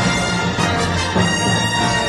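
Orchestral theme music.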